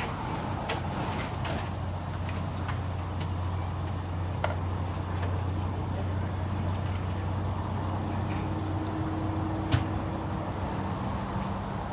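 Cargo van engine idling with a steady low hum, while a wooden transport crate is pushed into its cargo area, giving a few sharp knocks, the loudest near the end.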